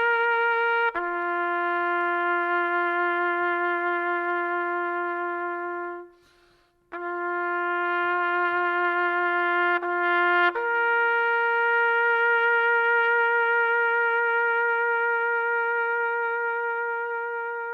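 Background music: a slow melody of a few long held notes on a single brass-like instrument, with a short break about six seconds in and fading near the end.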